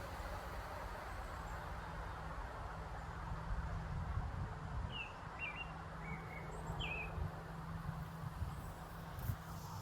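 Small wild birds giving short, high chirps, several in quick succession in the second half, over a steady low outdoor rumble.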